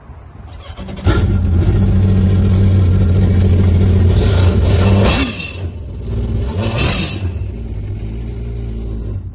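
A Yamaha FX HO WaveRunner's 1.8-litre four-stroke four-cylinder marine engine starts about a second in and runs at a high idle out of the water on its trailer. About five seconds in it settles to a lower, quieter idle, then is switched off at the end.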